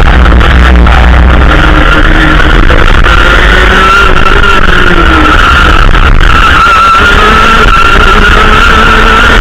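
Racing kart engine running hard through a series of corners, its pitch dipping and rising with the throttle. Very loud and distorted, picked up by a camera mounted on the kart.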